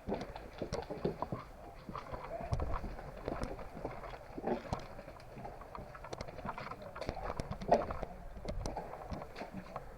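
Footsteps and rustling of a player moving on foot, with irregular sharp clicks and knocks throughout.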